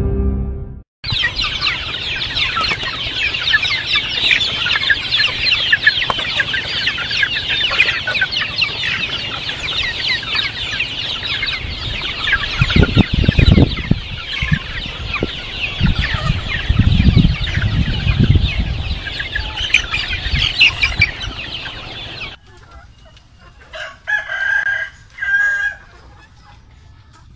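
A large flock of young chickens peeping and cheeping together in a dense, constant chatter, with a few low thumps midway. The chatter stops abruptly about 22 seconds in, and a few separate louder chicken calls follow.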